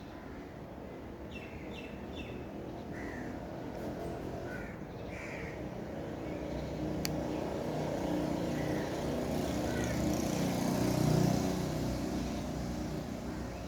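A road vehicle passing by, its rumble growing louder over several seconds, peaking near the end and then fading. Short bird calls sound over it, mostly in the first half.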